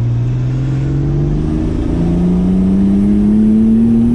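Turbocharged pickup truck engine accelerating hard under load, its pitch climbing steadily as the revs rise through one gear, heard from inside the cab.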